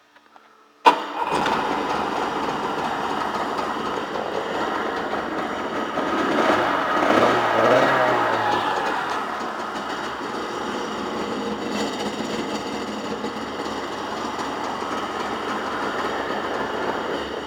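2001 Sea-Doo GTS's 717 two-stroke twin engine starting about a second in and running. It revs up briefly in the middle, settles back to a steady idle, and shuts off at the end.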